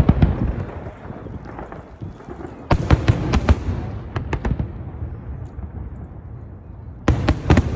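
Fireworks display going off: clusters of sharp bangs and crackling shell bursts at the start, about three seconds in and again near the end, over a steady low rumble of more distant explosions.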